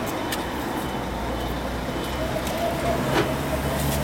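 Coach's diesel engine idling with a steady low hum, and a couple of sharp knocks of wooden crates being handled into the luggage hold.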